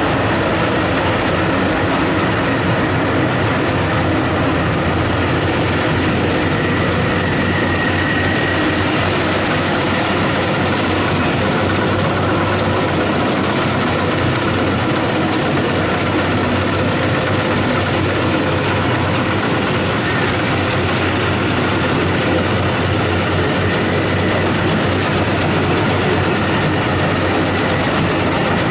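Rice combine harvester running steadily at work, its engine and machinery giving a loud, dense, unchanging mechanical noise.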